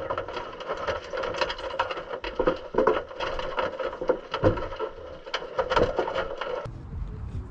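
Underwater sound picked up by a GoPro in its housing on a submerged wire crawfish trap: a steady muffled hum with frequent sharp clicks and knocks. It cuts off abruptly near the end.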